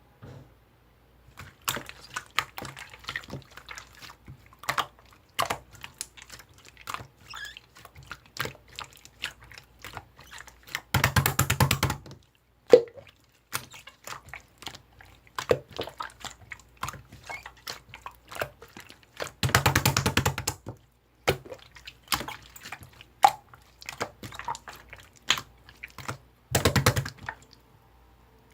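Clear slime being squished and pressed by hand, giving irregular wet clicks and pops, with three bursts of rapid crackling of about a second each, near the middle, about two-thirds in and near the end.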